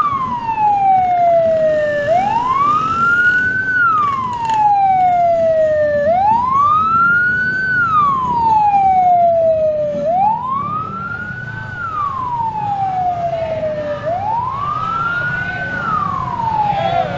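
Police car siren wailing, each cycle a quick rise and a slow fall, about once every four seconds. A second, higher siren wails more faintly for the first six seconds or so, over a low hum of traffic and motorbikes.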